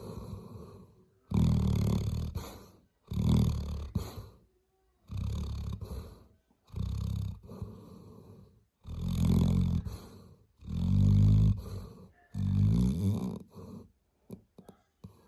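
Labrador retriever snoring in a steady rhythm: seven low, buzzing snores about one and a half to two seconds apart, then a few faint ticks near the end.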